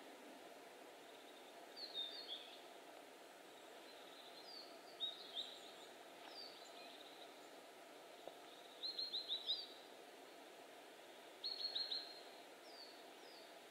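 Small forest birds calling faintly: short, high falling chirps every second or two, and twice a quick run of four or five notes, over a faint steady hiss.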